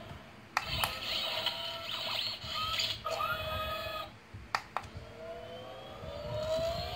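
A toy dinosaur gun's built-in electronic sound effects playing from its small speaker: synthetic tones with a few sharp clicks, then a slowly rising, siren-like wail near the end.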